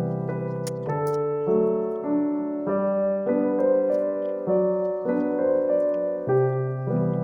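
Background piano music: slow chords changing about every half second to second.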